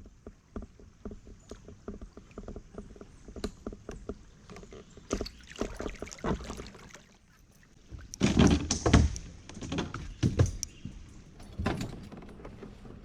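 Handling noises in a kayak with a freshly caught bass: a run of quick light clicks, about three or four a second, then several loud knocks and scuffs, the loudest about eight seconds in.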